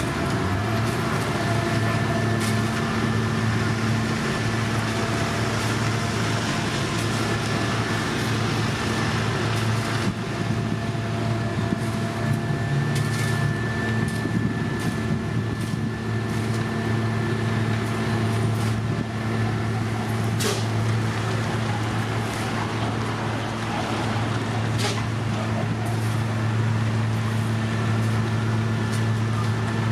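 Heavy diesel road-paving machinery running steadily, a low even engine drone, with a few sharp metallic knocks.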